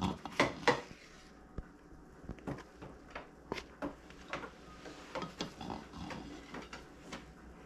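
Kitchen clatter as a taco is loaded: utensils tapping and knocking on dishes, two louder knocks about half a second in, then a string of lighter taps.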